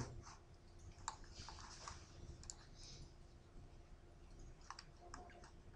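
Faint, scattered clicks of a computer mouse over near-silent room tone, the clearest about a second in and another near the end.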